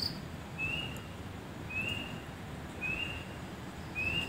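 A small night creature calling: a short, slightly rising chirp repeated four times, about once a second.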